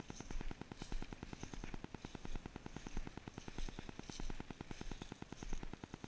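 Dense, continuous chatter of a large flock of blackbirds perched in a treeline, with high squeaky calls breaking out every half second or so, and wind gusting on the microphone.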